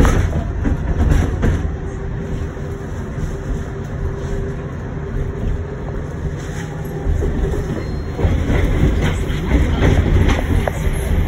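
Tatra T6B5SU tram running, heard from inside: a steady rumble of wheels on rails with scattered clicks over rail joints and a thin steady tone. It grows louder about eight seconds in.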